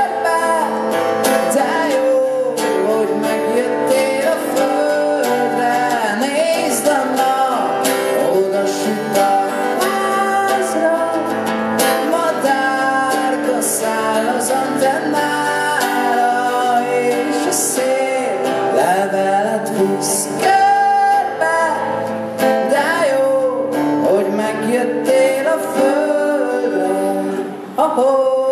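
A song performed live: strummed acoustic guitar under a male sung melody.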